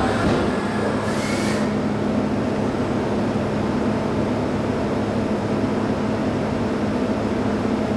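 CNC machining centre running with a steady low hum. About a second in there is a brief hiss and a short rising whine as the head moves the measuring probe toward the shaft.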